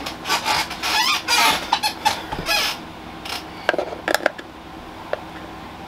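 Plastic handling noises of a Midland WR-100 weather radio's battery compartment as a battery is pushed in: a stretch of scraping and rustling, then several sharp clicks in the second half.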